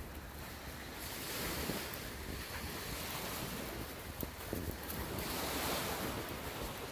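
Wind buffeting the microphone, swelling twice, with a few light footsteps on gravel.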